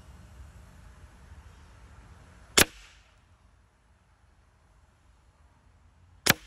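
Hatsan Invader Auto .25 calibre semi-automatic PCP air rifle firing two shots, sharp cracks a little under four seconds apart.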